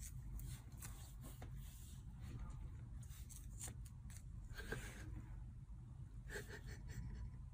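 Faint scattered clicks and rustles of a kitten pawing at and biting a small plastic object, over a low steady room hum.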